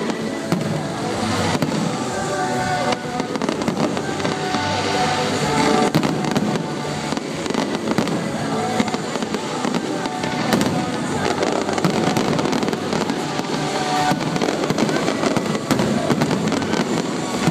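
Fireworks display: a continuous run of bangs and crackling bursts, heard over loud music playing with the show.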